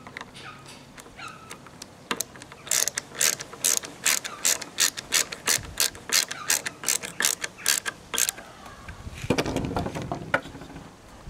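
Rear sight being screwed back onto a spring-piston air rifle: a steady run of sharp clicks, about three a second, from about two seconds in until just past eight, as the screw is turned. Near the end comes a short burst of handling noise.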